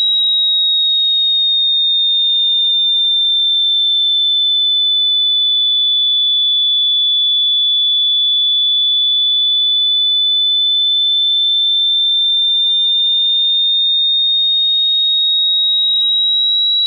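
A single high-pitched pure tone, loud and unbroken, that sinks slowly in pitch and then rises back over the span.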